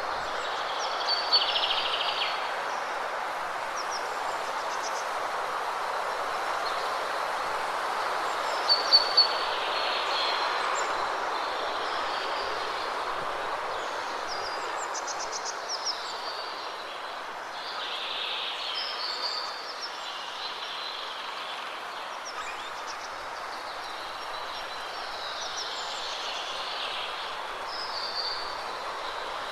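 Steady rush of a waterfall, with birds chirping over it in short high calls every few seconds, a few of them sharp and loud about a second in and near nine seconds.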